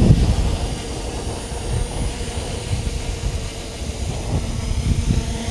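A multirotor drone's motors and propellers hum with a steady tone as it descends and touches down by itself in return-to-home mode. A second, lower tone joins near the end. Wind rumbles on the microphone.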